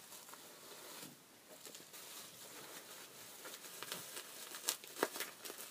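Faint rustling and crinkling of a doll's fuzzy bag and white wrapping being handled and pulled at by hand, with a few sharper ticks near the end.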